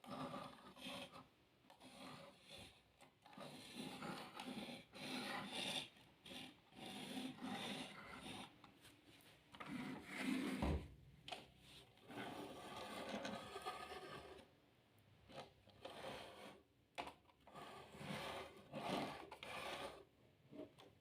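Irregular rubbing and scraping of toys or packaging being handled, in short bursts, with a single thud about halfway through.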